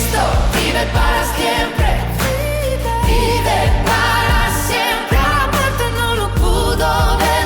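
Modern Christian worship song playing: a sung vocal line over a band with steady bass and regular drum hits.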